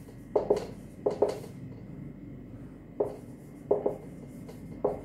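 Marker pen writing on a whiteboard in short separate strokes, about seven of them spread unevenly through the few seconds.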